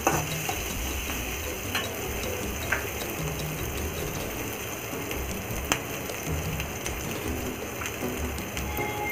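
Chopped green chillies, ginger and garlic sizzling steadily in a little hot oil over high gas, being roasted, with a few light clicks.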